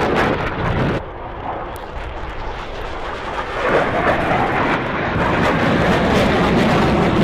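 Jet noise from a JF-17 Thunder fighter flying past, a steady rushing noise. It drops abruptly about a second in and swells back up from about four seconds.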